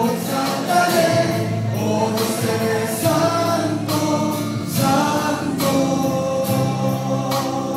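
A man singing a Spanish-language gospel worship song into a microphone, amplified through a PA, over instrumental accompaniment.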